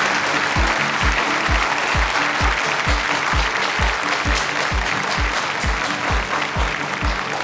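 Audience applauding, over music with a steady deep beat of about two beats a second that comes in about half a second in.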